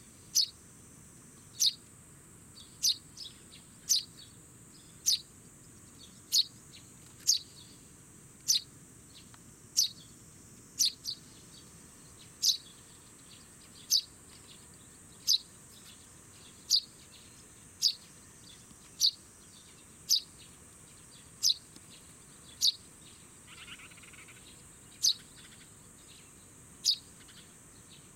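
Fledgling Eurasian tree sparrow chirping: short, sharp, high calls that drop in pitch, repeated about once a second, over a steady high-pitched drone.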